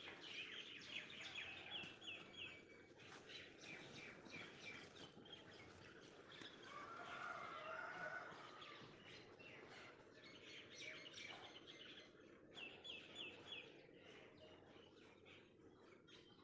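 Faint songbirds chirping, with a quick run of four or five repeated notes twice.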